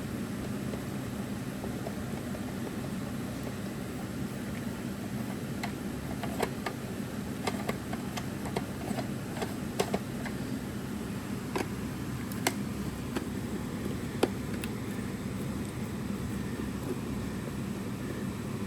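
Scattered small clicks and taps from hands handling plastic computer-speaker parts during disassembly, about a dozen in the middle stretch, over a steady low fan-like hum.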